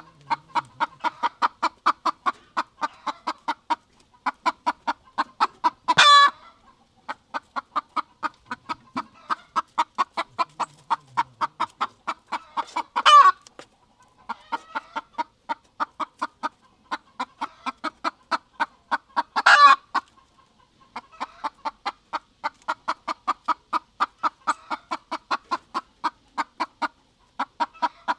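Rooster clucking in a fast, even run of about five clucks a second, with brief pauses. Three times, about every six or seven seconds, the run ends in a short, loud squawk.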